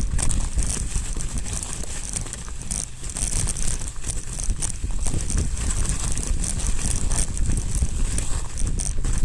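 Mountain bike being ridden over snow, heard through a camera mounted on the bike: a steady low rumble from the jolting mount, with crackling and rattling from the tyres and frame.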